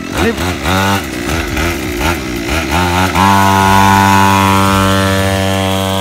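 Small two-stroke engine of a 50cc Go-Ped gas scooter, revved in several quick blips that rise and fall. About three seconds in it holds at a steady high pitch as the scooter pulls away, slowly fading.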